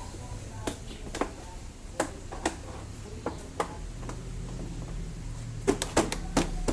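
Scattered sharp clicks and knocks of hand tools and metal parts being handled, with a quick run of them near the end. A low steady hum comes in about four seconds in.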